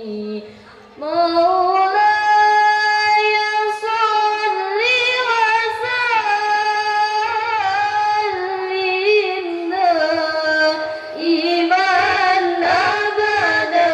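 Young women singing a sholawat (Islamic devotional song in praise of the Prophet) into microphones: a long, ornamented vocal line of held notes that bend and waver in pitch. It comes in strongly about a second in, after a brief dip.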